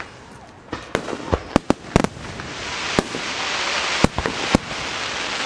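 Fireworks display: aerial shells bursting in a quick run of sharp bangs, then a few more spaced out, over a hiss that swells from about two seconds in.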